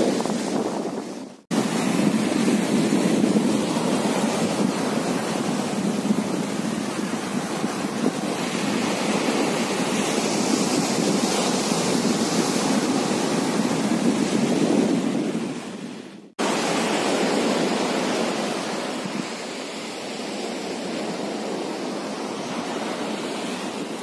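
Sea waves surging and washing up on a sandy beach, with wind blowing on the microphone. The sound drops out sharply for a moment twice, about a second and a half in and again past the middle.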